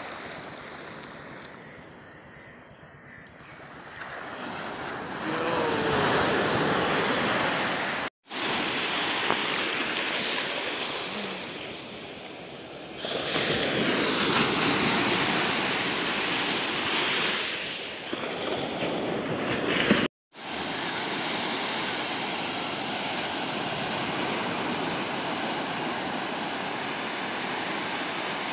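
Small surf waves breaking and washing up a sandy shore, the wash swelling and ebbing. The sound cuts out briefly twice, at joins between clips.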